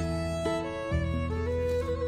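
Instrumental background music: sustained melody notes that step to new pitches every half second or so over held bass notes.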